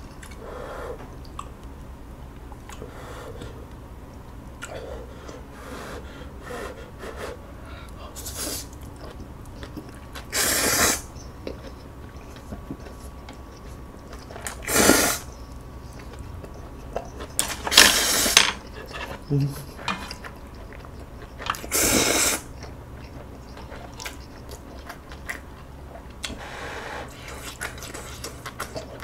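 A person slurping instant ramyeon noodles in four loud, short slurps spread across the stretch, with quieter chewing and mouth sounds between them.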